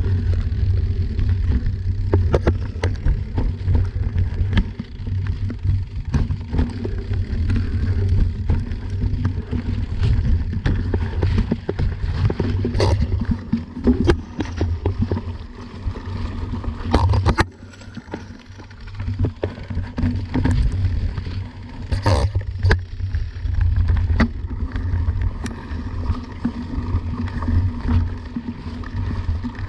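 Rumble of a camera moving along a forest dirt trail: heavy low wind and vibration noise on the microphone, with frequent sharp knocks and rattles from bumps. It eases briefly a little past halfway.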